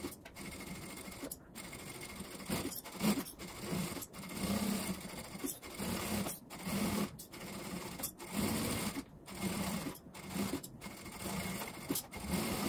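Industrial sewing machine stitching a piped seam around the curved edge of a fabric bag. The sewing comes in short stretches broken by abrupt cuts every second or so, where the footage has been sped up.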